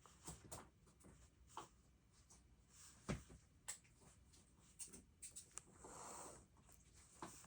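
Faint desk sounds of stationery work on a paper planner: scattered small clicks and taps of pen and paper, a sharper knock about three seconds in, and a short paper rustle around six seconds.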